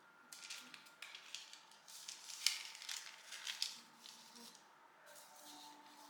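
A run of short clicks, taps and scrapes from household objects being handled, the loudest about two and a half seconds in.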